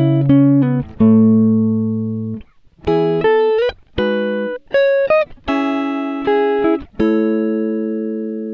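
Background music: a plucked guitar playing a slow melody of single notes and short runs. Each note rings and fades, with a couple of short upward slides in pitch in the middle.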